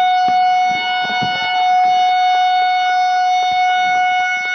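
A train horn held in one long steady blast at a flag-off, with scattered short sharp clicks over it.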